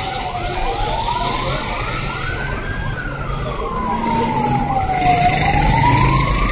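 Emergency vehicle siren wailing in slow rises and falls, about one full sweep every five seconds, growing a little louder toward the end.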